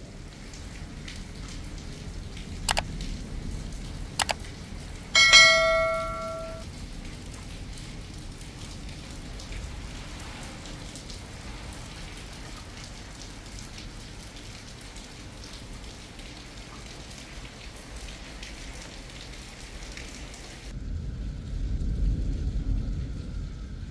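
Steady rain falling, with two sharp clicks and then a loud metallic ring that fades over about a second and a half, about five seconds in. Near the end the rain gives way to a low rumble.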